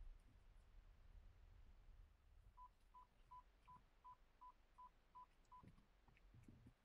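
Nine short electronic beeps at one steady pitch, about three a second, starting a couple of seconds in, over near silence. A faint low rumble fades out at first, and a couple of soft thumps come near the end.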